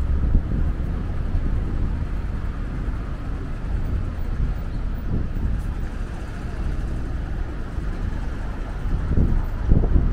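City street traffic, a steady noise of passing vehicles, with a low rumble that swells near the end.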